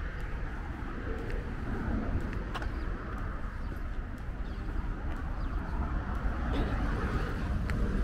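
City street ambience: a steady hum of traffic with a low rumble underneath, and a few short, sharp high ticks.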